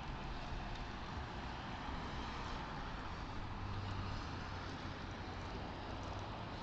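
Steady engine and road noise inside a car, picked up by a dashcam microphone. A low engine hum comes in about halfway through and eases off near the end. No crash impact is heard.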